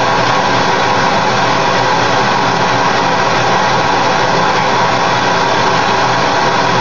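Gas torch flame burning steadily into a crucible, a loud continuous rushing roar that does not change, as it heats silver to melting for a pour.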